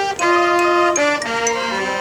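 Marching band music: held notes and chords that move to a new pitch about every half second.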